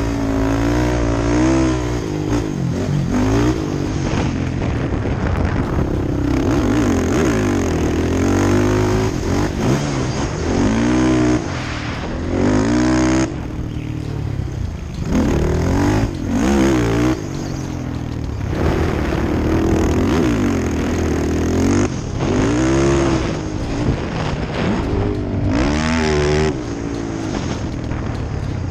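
Sport quad (ATV) engine heard from the rider's helmet, revving up and dropping off again and again as it accelerates and backs off through the turns and straights of a dirt motocross track.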